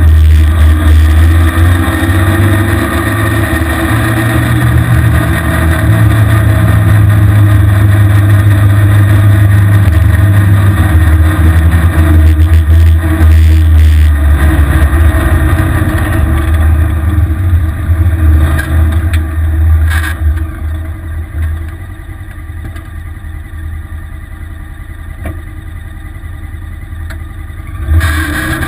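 The engine of a small open vehicle running hard under throttle, with wind rushing over the microphone. About twenty seconds in it eases off and goes much quieter, then revs up again just before the end.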